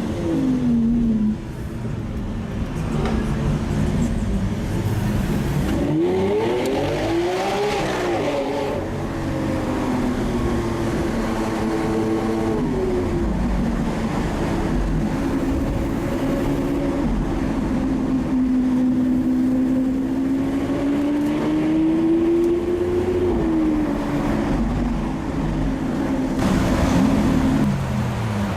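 Lamborghini Aventador SV's naturally aspirated V12 engine under way, its note rising and falling with the driving. It revs up sharply and drops back about six to eight seconds in, then holds and climbs slowly before falling again late on.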